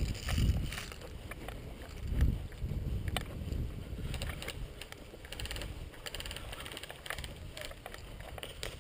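Helmet-mounted action camera carried at a walk through tall grass: low wind rumble on the microphone, footsteps and gear rustling. A few sharp clicks stand out, one about three seconds in.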